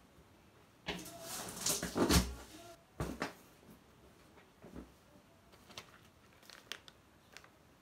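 Handling noise close to the microphone: about two seconds of rustling with a heavy thud in the middle, then a sharper knock a second later and a few faint ticks.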